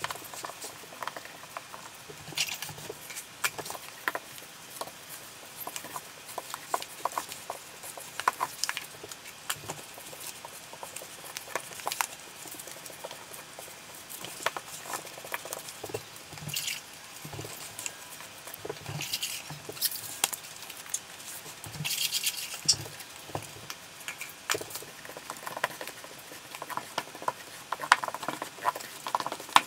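Rubber grout float scraping and tapping across marble tile as grout is worked into the joints: irregular short scrapes with many small clicks, and a few louder swishes.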